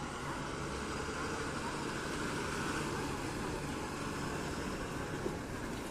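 Diesel engine of a red Maharashtra State Transport (MSRTC) bus running steadily as the bus drives slowly past, a continuous low drone with road noise.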